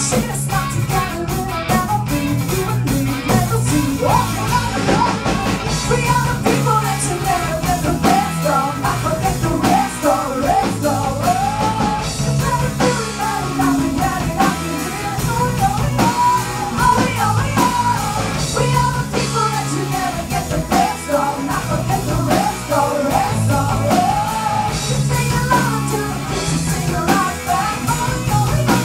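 Live rock band playing: female lead vocals over bass guitar and drum kit.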